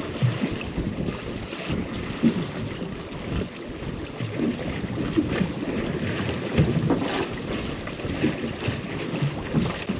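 Wind buffeting the microphone over sea water washing and slapping against the hull of a small drifting boat, uneven in level.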